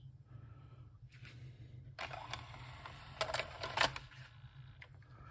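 Scattered light clicks and knocks from handling the opened Philips DCC 600 cassette deck and its plastic tape mechanism, over a low steady hum.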